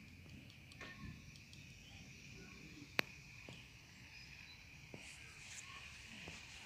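Faint garden ambience of insects chirring steadily, with a single sharp click about three seconds in.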